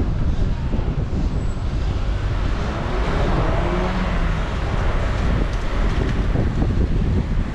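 Wind buffeting the microphone of a moving rider, with road traffic and a vehicle engine underneath whose pitch glides faintly around the middle.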